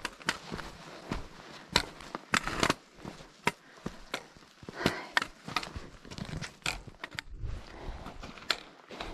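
A hiker's footsteps on a rocky trail: uneven, irregular steps, with a brief low rumble on the microphone near the end.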